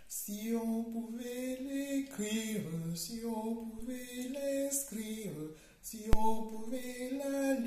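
A woman singing unaccompanied, holding long notes and sliding between them. A single sharp click about six seconds in.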